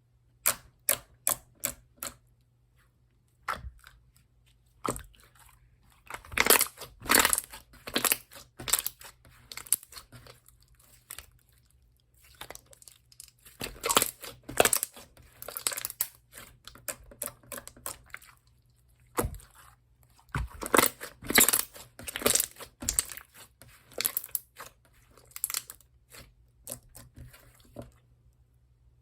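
Slime being pressed and stretched by hand, with clusters of crackling, clicking pops coming in groups of a few seconds with short pauses between.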